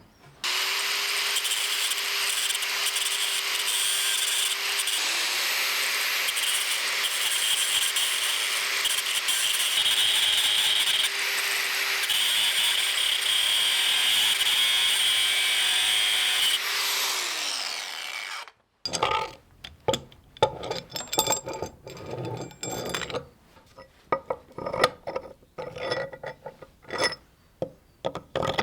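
Electric grinder grinding down the steel threaded rod where it fouls, running at a steady speed, then switched off about two-thirds of the way in and winding down. Light clicks and knocks follow, as of metal parts being handled.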